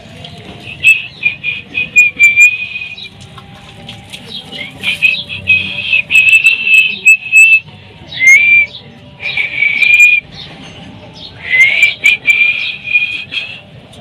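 Indian ringneck (rose-ringed) parakeet giving high-pitched, whistle-like vocalizations in about five bursts, two of them sliding up in pitch as they begin.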